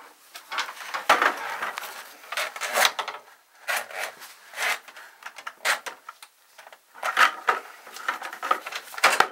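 Irregular rustling, scraping and knocks as a drill-driven drum drain auger and a rag are handled and bumped against a wooden sink cabinet. There is no steady motor sound, so the drill is not spinning the cable.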